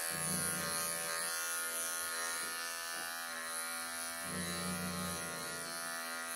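Wahl professional electric pet clippers humming steadily while shearing a Persian cat's coat around the neck. Twice, a lower rumble lasting about a second sounds under the hum: once near the start and once about four seconds in.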